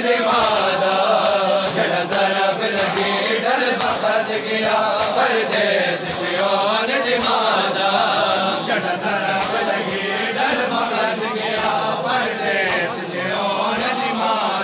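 Large crowd of men chanting a mourning noha together, voices rising and falling in a slow melody, with frequent sharp slaps of hands striking chests (matam) cutting through.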